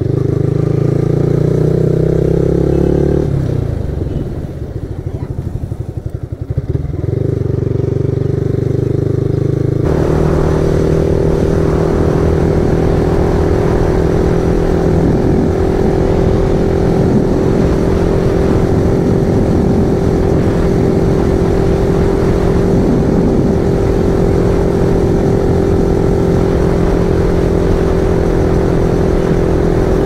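Yamaha R15M's 155 cc single-cylinder engine running under way, heard from the rider's seat. A few seconds in it drops to a quieter, pulsing note for about four seconds, then picks up again. About ten seconds in it settles into a new steady note that holds for the rest.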